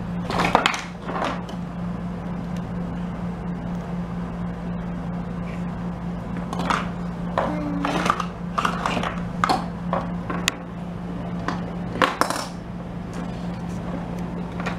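Small hard plastic toy pieces clicking and clattering now and then as a toddler handles them and drops them into and out of a container, with a cluster of clicks in the second half. A steady low hum runs underneath.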